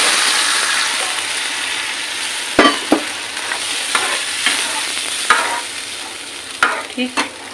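Sizzling hiss of water hitting a hot pan of potatoes in tomato-chilli masala, slowly dying down, while a steel ladle stirs and clicks against the nonstick pan several times.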